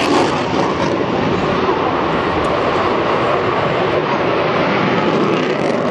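Jet aircraft engine noise at an airshow: a loud, steady rush of jet noise.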